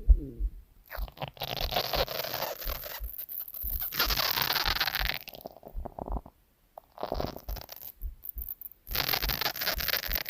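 A hungry stomach growling in four bursts of a second or two each, with short gaps between.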